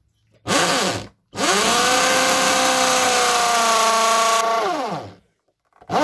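Corded electric drill boring a concealed-hinge cup hole through a drilling jig into a board. The motor runs in a short burst, then runs again for about three and a half seconds with a steady whine. It winds down as the trigger is released, and starts up again at the very end.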